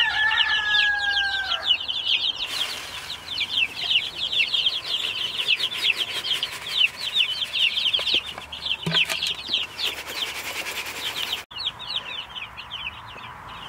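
A brood of baby chicks peeping constantly: many short, high, falling cheeps overlapping. From about two seconds in, a hiss of chick feed being poured from a bucket into a hanging feeder runs under the peeping and stops abruptly near the end.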